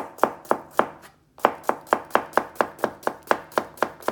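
Chef's knife slicing a cucumber into thin rounds on a plastic cutting board: quick, even knocks of the blade on the board, about four a second, with a brief pause about a second in.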